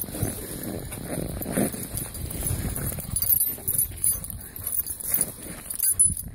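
A dog running and playing in snow: uneven scuffing and crunching footfalls through the snow, with irregular knocks.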